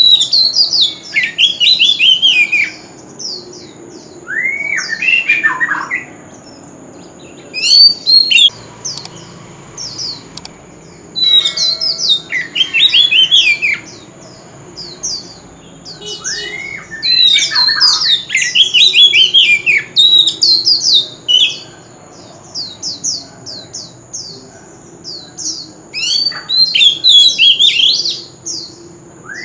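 Oriental magpie-robin singing: loud phrases of rapid, varied whistled notes that swoop down and up, with short pauses between phrases. A thin steady high tone runs behind much of it.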